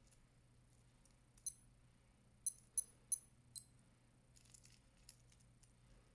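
Faint, sharp metallic clicks from handling a Skmei 1335 watch and its expandable metal bracelet. There are five quick clinks with a brief high ring, then a short, looser jingle of the bracelet links.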